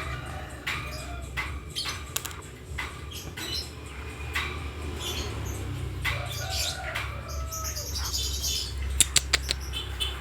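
Nightjar giving short, high squeaks and chirps while being fed, with a few sharp clicks about nine seconds in.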